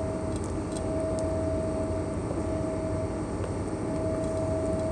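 Steady low mechanical drone of a towboat's running machinery, with a thin steady whine that drops out twice. Faint scrapes of a wooden spoon stirring beans in a glass baking dish come through it.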